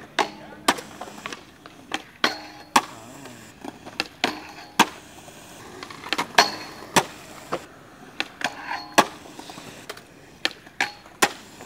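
Skateboards at a skatepark: a string of sharp wooden clacks from boards popping, landing and slapping down, over the rumble of wheels rolling on concrete.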